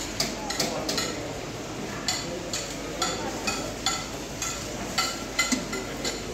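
Metal serving spoons and ladles clinking against steel buffet pots and chafing dishes: a dozen or more short, ringing clinks at an uneven pace.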